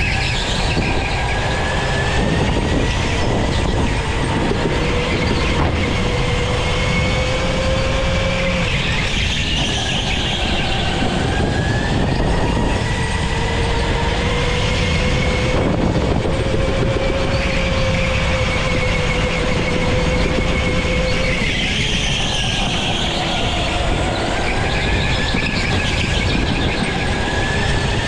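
Go-kart driving fast, heard from on the kart: a whining motor tone that climbs with speed and dips twice where the kart slows for corners, over a constant rush of tyre and wind noise.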